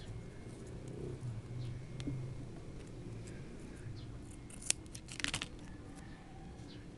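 Small handling clicks as double-sided tape and a cutting tool are worked on a tabletop: one sharp click about two-thirds of the way through, then a quick cluster of clicks, over a faint low hum.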